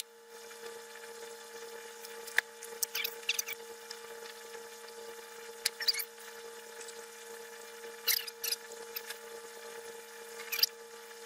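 Scattered short clicks and knocks, some in quick clusters, from a wrench and the parts of a small benchtop drill press being handled on a wooden workbench as its feed handles are threaded in. A steady low hum runs underneath.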